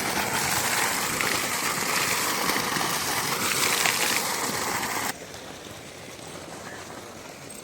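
Running water gushing steadily as a freshly picked green mango is washed in it. The sound cuts off suddenly about five seconds in, leaving a quieter background.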